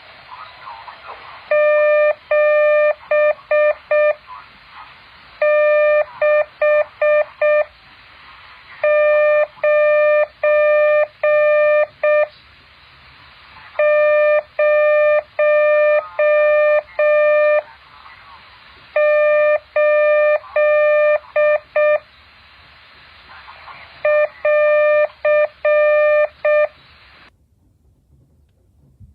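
Morse code tones: a single steady mid-pitched beep keyed on and off in dots and dashes, sent in six groups with pauses of a second or two between them, stopping a little before the end.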